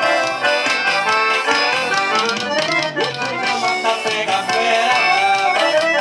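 Forró band playing an accordion-led tune over a steady, driving beat, with no singing at this point.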